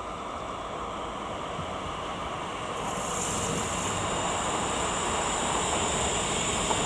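A train approaching on the line, its rumble growing steadily louder, with a high steady whine joining in about three seconds in.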